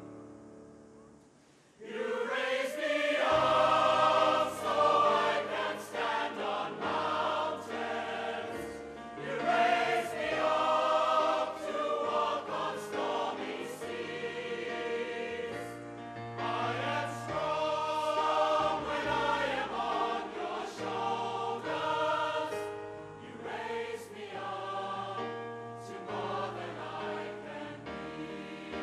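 A choir singing with instrumental accompaniment. It comes in about two seconds in, after the earlier music has faded almost away.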